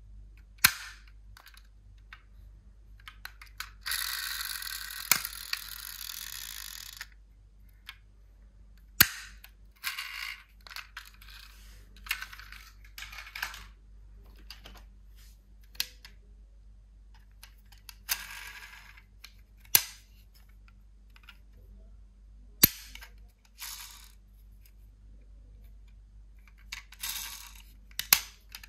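Die-cast toy cars being handled: sharp clacks as cars are set down on a hard surface, between short spells of rattling as they are moved about and rummaged through, the longest lasting about three seconds, starting some four seconds in.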